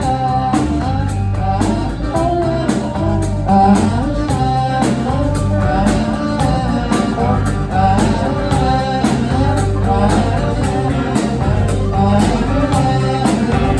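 Live roots-rock band playing an instrumental break: a melodic lead line over bass and a steady drum beat.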